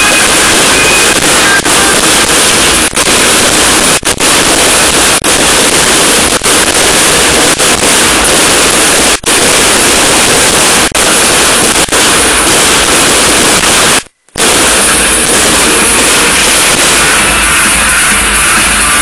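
Dense, continuous din of pyrotechnics, so loud that the recording is overloaded and distorted throughout. The sound cuts out for a moment about fourteen seconds in.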